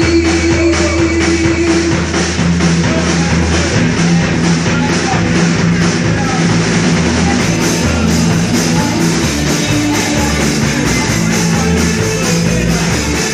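Rock music played by a band with a drum kit keeping a steady beat.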